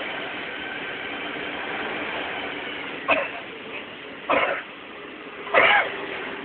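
Tour bus engine running with steady wind and road noise on the open top deck, broken by three short, loud sounds whose pitch bends, about three, four and a half, and five and a half seconds in.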